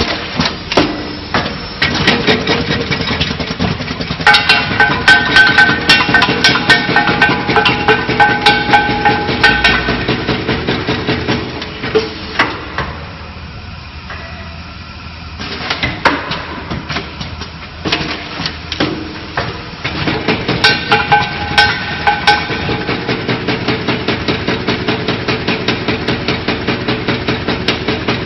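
Premade-pouch tablet counting and packing machine running: a rapid, busy clatter of mechanical clicks and knocks, with a steady tone at times. It eases off briefly midway, then settles into a regular beat of about two to three knocks a second near the end.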